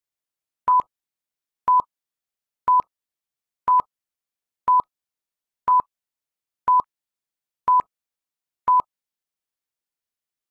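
Short electronic beeps at one steady pitch, one a second, nine in a row, then stopping near the end: a countdown-timer sound effect ticking off the seconds left to answer a quiz question.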